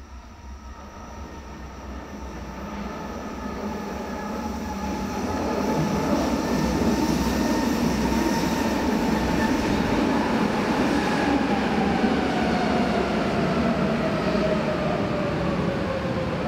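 Berlin U-Bahn U2 train coming into a station, growing louder over the first several seconds. Its motor whine slides steadily down in pitch through the second half as the train brakes.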